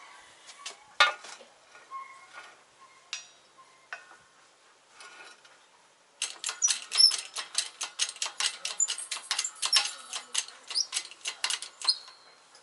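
Hydraulic shop press being worked by hand to press a new control arm bushing into its arm. Scattered metal clinks come first, then from about halfway a rapid run of metallic clicks and rattles, about five a second.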